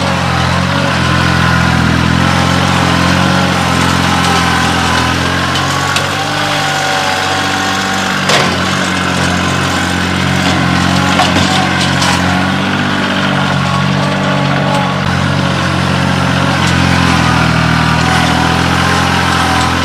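Kioti CK2610 compact tractor's three-cylinder diesel engine running steadily as the tractor drives with its front loader. A higher whine sits over the engine note, and there are a few sharp knocks.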